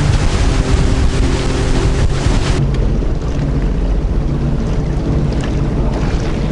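Sea-Doo Fish Pro 170 jet ski's Rotax three-cylinder engine running steadily under way, with water spray hissing and wind on the microphone. About two and a half seconds in the hiss drops away sharply, leaving the engine's steady hum and the wash of the water.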